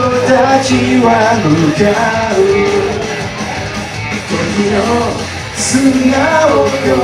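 A man singing into a microphone over a rock karaoke backing track, both amplified through a PA speaker.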